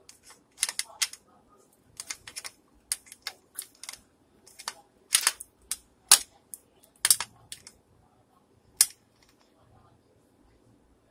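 Small hard plumbing parts being handled: irregular sharp clicks and clacks, a few louder than the rest, stopping about nine seconds in.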